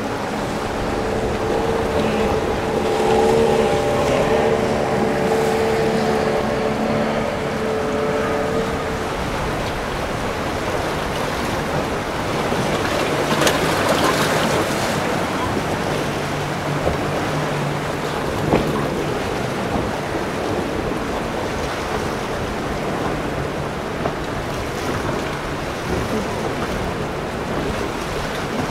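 Motorboat engines running amid the steady rush of waves and wind in a rough inlet. A steady engine tone is strongest in the first several seconds, and a louder surge of water comes about halfway through.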